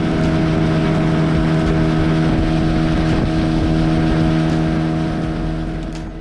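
Outboard motor of a small fishing boat running at a steady cruising speed, with rushing water and wind beneath it; the motor's sound eases off in the last second or so.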